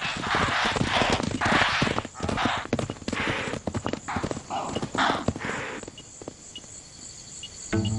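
Antelope hooves galloping away over dry grassland, a fast run of thuds with swishing through the grass, fading out about six seconds in.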